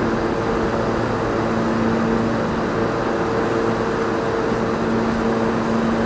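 R160A subway train standing at the platform with its doors closed, its onboard equipment giving a steady hum with two steady tones under a constant rushing noise.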